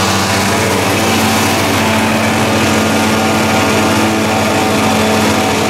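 Lindig XR16 wood chipper's Ford 300 inline-six engine running steadily, until the sound cuts off abruptly.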